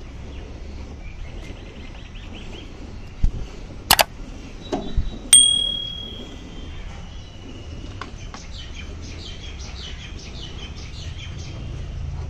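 A water buffalo milked by hand: rhythmic squirts of milk hiss into a frothy steel bucket, about three strokes a second in the second half. A few sharp knocks come about three to five seconds in, then a sharp metallic ding that rings on briefly.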